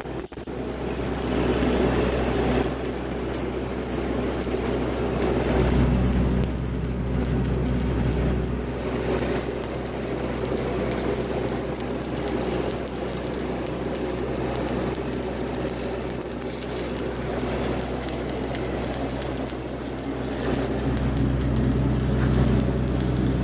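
Stick-welding arc crackling and frying steadily as a 1/8-inch 7018 rod burns at 125 amps, over the steady low drone of a Lincoln Vantage 300 engine-driven welder.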